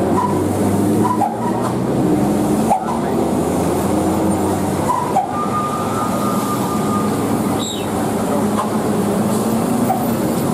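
Diesel engines of heavy trucks, fuel tankers among them, pulling up a steep hairpin climb, one tanker passing close by. A steady engine drone, with a thin whine for a couple of seconds partway through.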